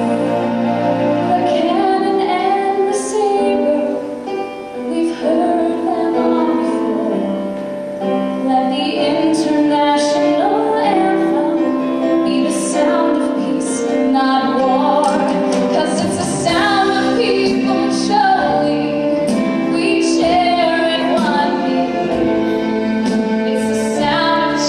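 Music: female voices singing a song together, with backing accompaniment.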